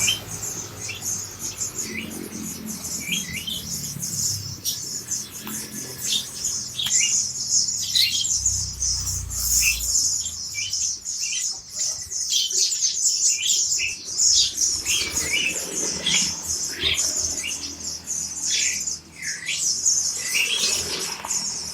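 A crowd of caged white-eyes (pleci) chirping together: a constant high twittering, with many short chirps that slide downward in pitch.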